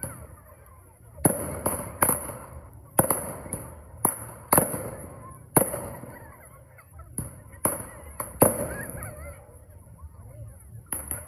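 Fireworks and firecrackers going off overhead in a rapid, irregular series of about a dozen sharp bangs, each with a short echoing tail.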